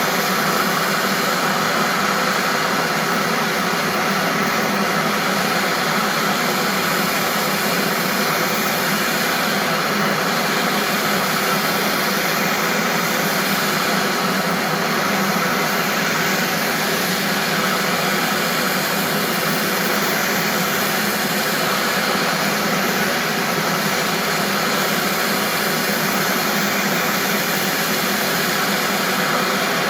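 An engine running steadily at a constant speed, its pitch unchanging throughout.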